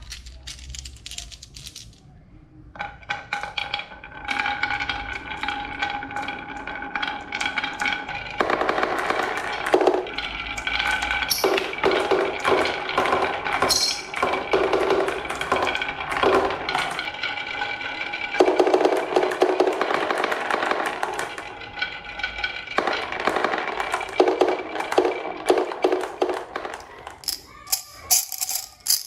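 Marbles rolling and clattering down a wooden HABA marble run: a dense stream of small clicks and knocks with a steady ringing tone underneath, starting about three seconds in.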